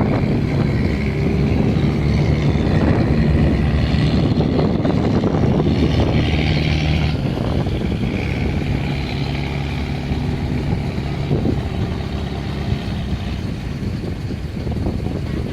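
A heavy engine running steadily with a low, even hum, wind buffeting the microphone; the level eases off slightly after about eight seconds.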